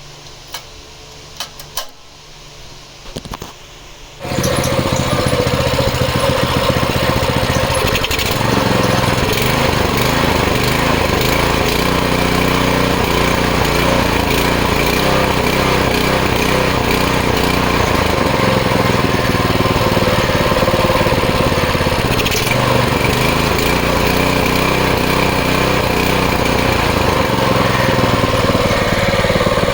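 A few light clicks and knocks of handling, then about four seconds in the small gas engine of a Westinghouse WPX3200 pressure washer comes in abruptly and runs loud and steady.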